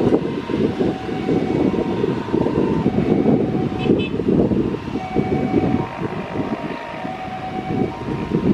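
Twin-engine jet airliner's turbofan engines running on the runway, heard from behind as a loud, steady rumble with high steady engine tones over it. Wind buffets the microphone throughout.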